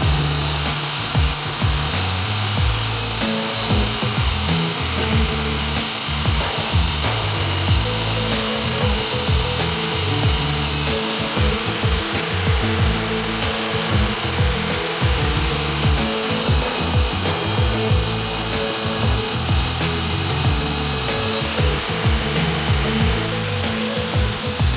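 Angle grinder driving a belt-sander attachment, its motor whining steadily while a steel piece is ground on the abrasive belt; the whine wavers and sags in pitch under load, dropping about two-thirds of the way through and picking back up near the end. Background music plays along.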